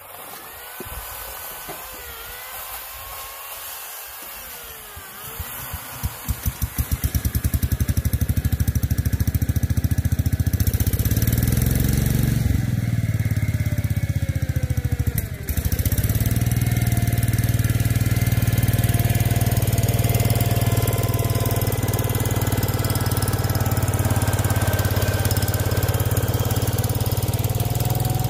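Small engine of a Cub Cadet lawn tractor catching about six seconds in and then running steadily, with a brief dip in revs about halfway through.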